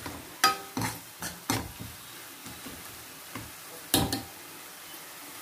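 Steel ladle clinking and scraping against a metal kadai while stirring chopped onion and tomato: a run of sharp metallic clinks in the first second and a half, and another about four seconds in.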